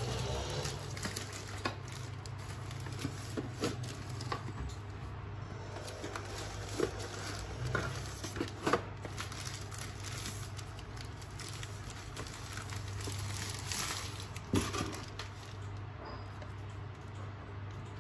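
Thin plastic wrapping being crinkled and crumpled by hand, with scattered sharp clicks and knocks from handling cardboard packaging, over a low steady hum.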